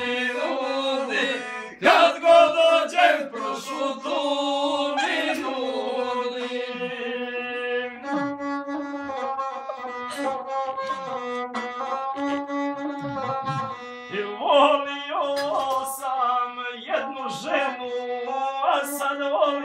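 Gusle playing an instrumental passage between sung verses: a bowed melody held on long, steady notes.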